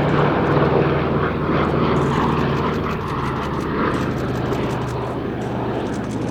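Radial piston engines of a World War II warplane droning steadily as it flies by in a display.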